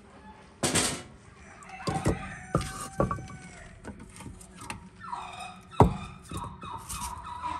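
Split hardwood firewood logs are set down and slid into place on the floor of a brick wood-fired oven: a scrape about a second in, then a run of dull wooden knocks, the loudest shortly before the end.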